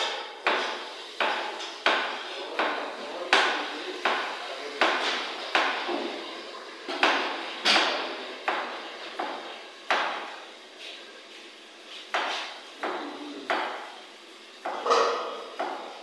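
Kitchen work on the counter: a sharp knock about every three-quarters of a second, in a steady rhythm, with a pause of about two seconds around ten seconds in.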